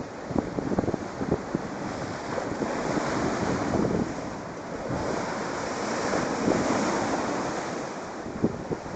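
Strong sea waves surging and breaking, swelling louder twice, with wind buffeting the microphone in short gusts.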